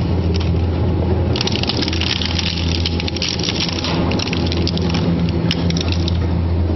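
Twin-shaft shredder running with a steady low motor hum while its toothed blades crush and tear a plastic toy robot. Dense cracking and snapping of plastic starts about a second and a half in and dies away near six seconds, leaving the machine running empty.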